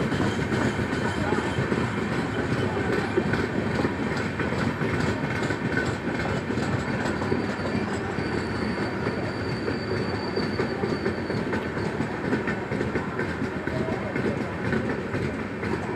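LHB passenger coaches of the Goa Express running past on the track: a steady rumble and clatter of wheels over the rails. About halfway through, a faint high whine sounds for a few seconds.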